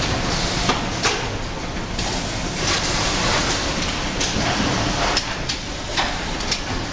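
Automatic carton packing line running: a steady machine noise from conveyors and packing machinery, with irregular clacks and knocks about once a second and a few short spells of hissing.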